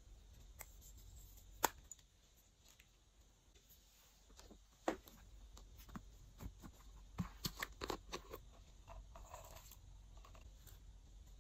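Faint handling sounds: a few sharp clicks and taps of plastic supplies, with a quick run of clicks about seven to eight seconds in and a short soft rustle just after. A silicone squeeze bottle is being handled and tipped over a glass dish of slime.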